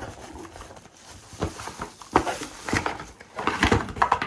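Cardboard box being opened and the packaging handled: rustling and scraping with a string of small knocks, busiest near the end.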